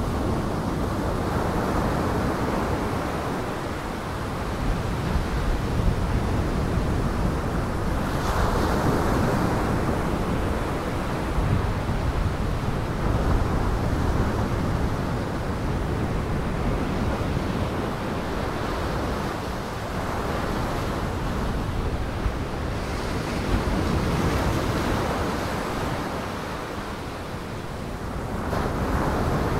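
Storm surf: large waves breaking and washing ashore in a continuous rush that swells and eases every several seconds.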